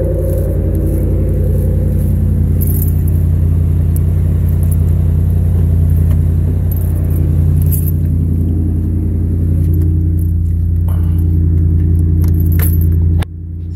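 2019 Ram 1500 Classic's engine at a raised cold-start idle, running steadily through an exhaust whose muffler has been deleted and replaced with a Y-pipe. A few light jingling clicks sound on top, and the sound drops suddenly and becomes muffled near the end.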